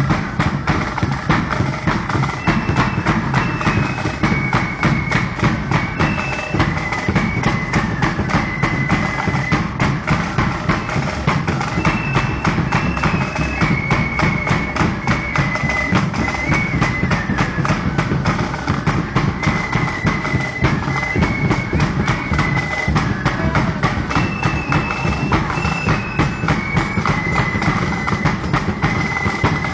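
Marching band playing as it parades: a high flute melody over fast, steady snare and bass drumming.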